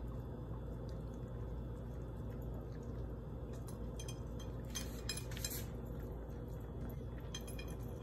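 Three Yorkshire terriers eating from one shared bowl: small wet clicks of chewing and licking and the bowl clinking now and then, busiest around the middle, over a steady low hum.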